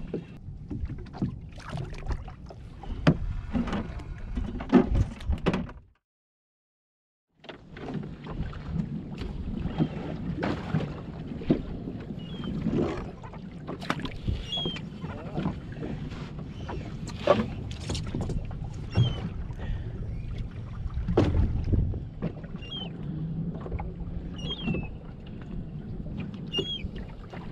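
Sea water slapping against the hull of a small open skiff, with wind on the microphone and occasional sharp knocks of fishing gear against the boat. The sound breaks off into brief silence about six seconds in, then the same boat-and-water sound resumes.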